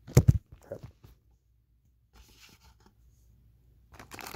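Handling noise: a few heavy knocks at the start as the camera is moved and set down, then faint scattered clicks and rustles. Near the end, the thin plastic bag around the sunglasses starts crinkling as it is unwrapped.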